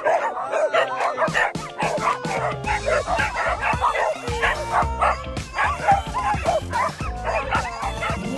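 A pack of small dogs barking and yipping over each other, with background music whose bass beat comes in about two and a half seconds in.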